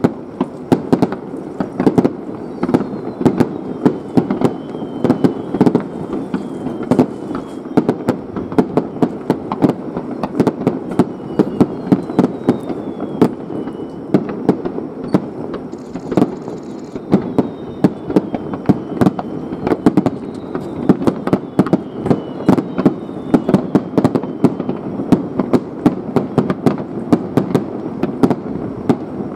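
Fireworks display: a continuous barrage of bangs from bursting shells, several a second, over a steady rumble of echoing reports.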